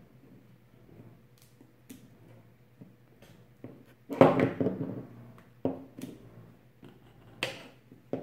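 Crinkling of a toy egg's plastic wrapping as it is cut open with scissors: a loud rustle about four seconds in, with a few sharp clicks and snips before and after.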